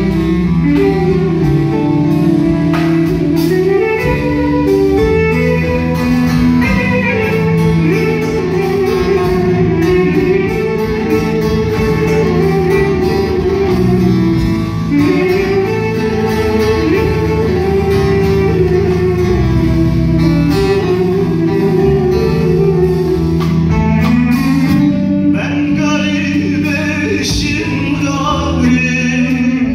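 Live Turkish folk band music: bağlama and a double-neck long-necked saz play a winding melody over electric bass and drums. A male voice comes in singing near the end.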